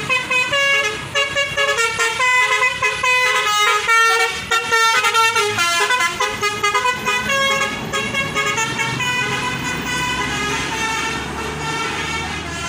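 Basuri telolet bus horn, a multi-trumpet air horn, playing a quick melody of stepped notes, with a low engine hum underneath.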